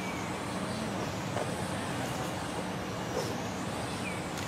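Steady outdoor background noise, a low rumble and hiss like distant road traffic, with a faint steady hum. Two faint short high chirps, one near the start and one near the end.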